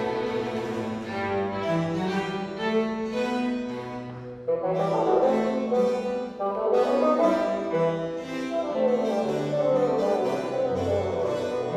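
Baroque bassoon concerto played live: bassoon with two violins, viola, cello and harpsichord in a fast movement, with moving low notes under the strings. The music thins briefly about four seconds in, then the ensemble comes back in louder.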